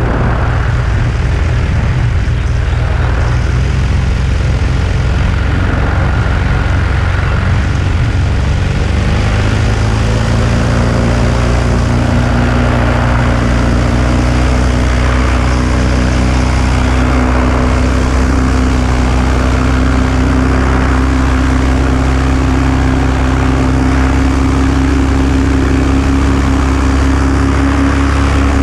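Paramotor engine and propeller running steadily; about nine seconds in the engine speeds up, its pitch rising and then holding higher.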